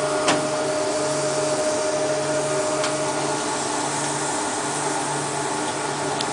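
Sawdust briquette press running: a steady mechanical hiss and hum with a low throb that pulses about once a second, and a few sharp clicks.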